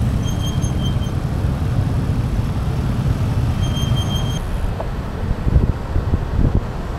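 City road traffic of motor scooters and cars running close by, a steady low rumble, with two short high electronic beeps in the first half. From about five seconds in, wind buffets the microphone as the bicycle picks up speed.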